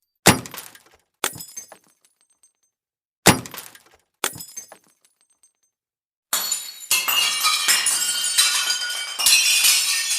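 Glass breaking: four separate smashes with short ringing tails in the first five seconds, then, from about six seconds in, a long run of dense shattering.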